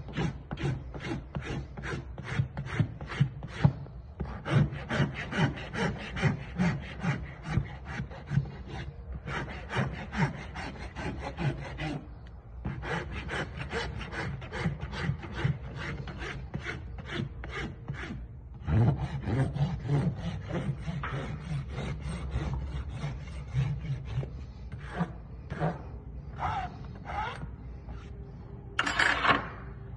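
Farrier's rasp filing a horse's bare hoof in quick repeated back-and-forth strokes, several a second, with a few short pauses. Near the end the strokes thin out to a handful of separate rasps.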